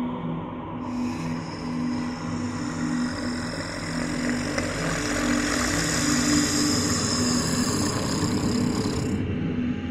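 Low sustained drone tones that shift between notes, under a loud rushing noise that starts about a second in, swells, and cuts off suddenly near the end.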